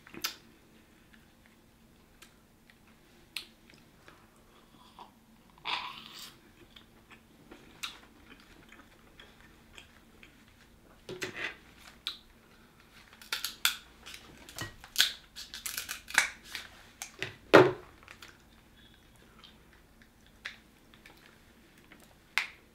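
Kitchen shears snipping through sauce-covered king crab shell and fingers cracking it open. A run of sharp cracks and snips comes in the middle, with scattered smaller clicks of chewing and wet eating before and after.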